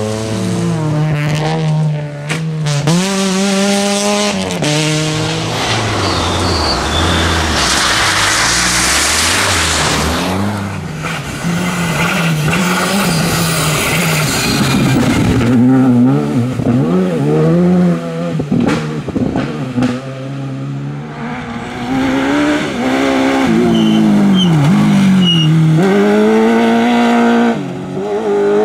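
Rally cars on a loose dirt stage, engines revving hard and dropping again and again through gear changes and lifts for corners. A rush of gravel and tyre noise comes as a car passes close, a few seconds in.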